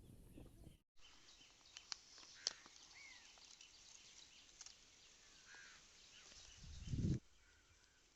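Faint outdoor ambience with a few scattered bird chirps and some sharp clicks, after a brief gap just under a second in. A short low rumble rises and cuts off near the end.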